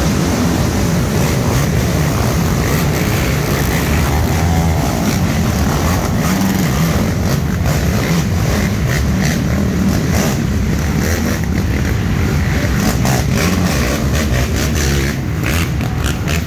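Several racing ATV engines running hard at once, loud and continuous, with sharp bursts of throttle in the second half.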